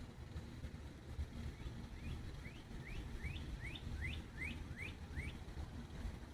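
A bird singing a run of about nine quick, clear, rising notes, about two and a half a second, starting a second and a half in and stopping about a second before the end. A steady low rumble runs underneath.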